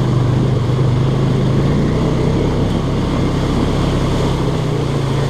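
Small off-road vehicle's engine running steadily as it drives through creek water, with the rushing noise of water and spray over it.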